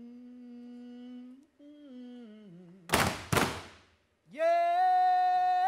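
A wordless voice humming long held notes that step downward in pitch, broken by two loud sharp hits about three seconds in, then a louder, higher held note.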